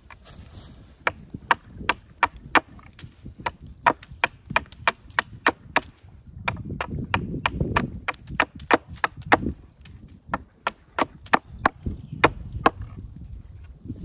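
Hatchet chopping a point onto the end of a wooden stake held upright on a log: a quick run of sharp wooden knocks, about two to three a second, with a short pause about halfway.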